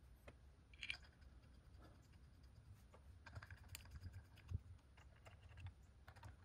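Faint scattered clicks and light metal taps of bolts and a hex key being worked by hand in an ATI Super Damper's hub and AC pulley as the bolts are snugged down. The sharpest taps come about a second in and just under four seconds in.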